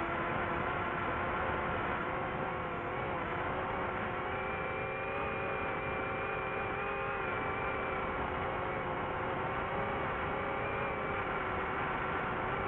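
Multirotor drone's electric motors and propellers whirring steadily as heard from its onboard camera: several steady whining tones that waver slightly in pitch, over a low rumbling noise.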